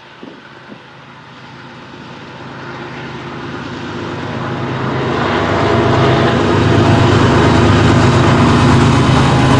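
Diesel locomotives of a BNSF freight train approaching, their engines growing louder over about six seconds, then running loud and steady as they come close.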